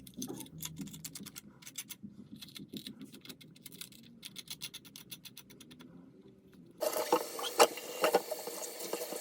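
Faint clicks and scrapes of household objects being handled, then about seven seconds in a louder steady hiss begins with a few sharp knocks over it.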